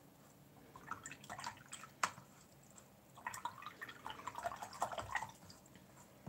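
Wet paintbrush being swished in a cup of rinse water, making small drips and splashes in two spells, with one sharp click about two seconds in.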